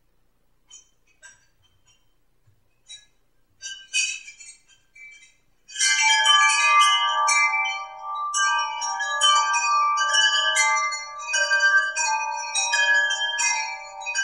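Chimes ringing: a few scattered high tinkles at first, then from about six seconds in a dense wash of many overlapping ringing tones, each struck and left to sustain.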